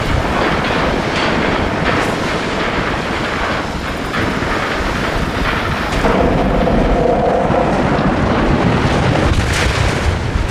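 Heavy vehicle engine running hard and steadily, pulling under load. A brief higher tone joins in about six seconds in.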